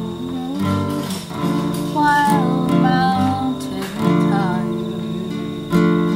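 A man singing to his own acoustic guitar accompaniment, the guitar chords ringing under a sung melody.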